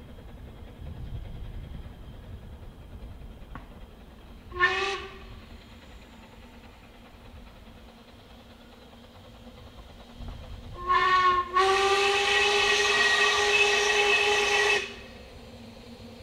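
Narrow-gauge Double Fairlie steam locomotive sounding its whistle on one steady pitch: a short toot about four and a half seconds in, then another short toot and a long blast of about three seconds near the end.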